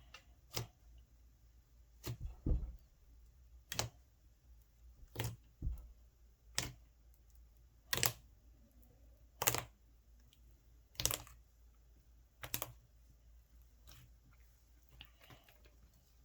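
Slime being pressed and popped, giving sharp clicks roughly one every second and a half.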